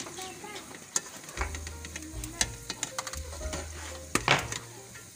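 Pakoras sizzling in hot oil while a metal slotted skimmer scrapes and clinks against the metal pot as they are scooped out. There are several sharp clinks, the loudest about four seconds in.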